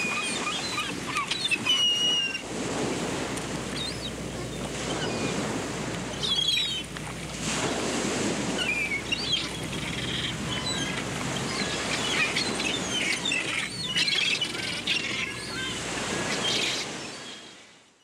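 Ocean surf washing in waves, with small birds chirping and calling over it; the sound fades out near the end.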